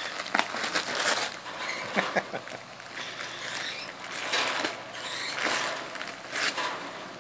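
An Alaskan Malamute tearing at Christmas wrapping paper with her teeth: irregular bursts of paper crinkling and ripping.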